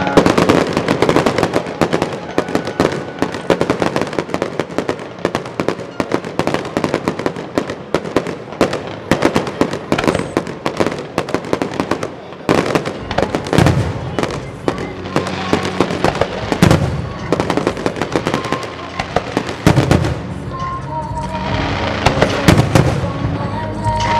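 Fireworks display: a dense, rapid crackling and popping of many shells bursting, with several heavier, deeper booms in the second half.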